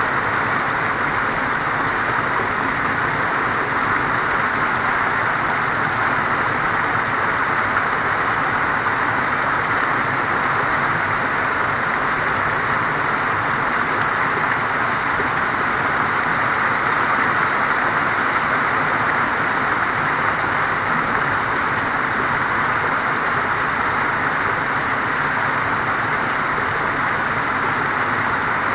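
Small waterfall pouring over boulders close by: a steady, loud rush of falling and splashing water that does not change.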